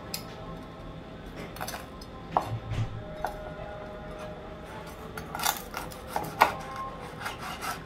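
Knife and fork cutting pieces of crispy fried pork belly on a wooden cutting board: scattered clicks and knocks of metal on the board and on the crackling skin, the sharpest few in the second half.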